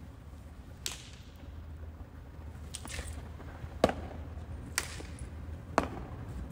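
A step team's hand claps and stomps: about five sharp, separate hits spaced roughly a second apart, the loudest a little before the 4-second mark, over a steady low rumble.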